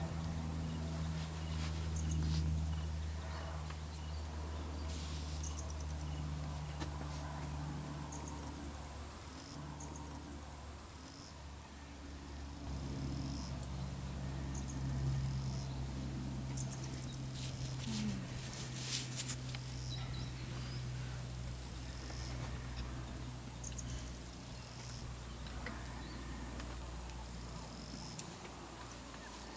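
Insect chorus chirring steadily at a high pitch, over a low steady hum.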